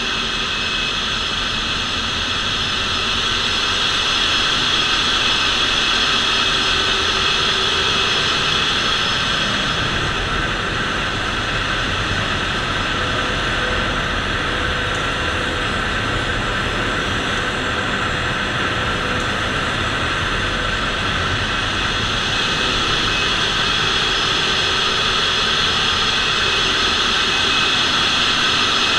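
Ship's engine-room machinery running: a loud, steady drone with many steady tones, growing a little louder near the end.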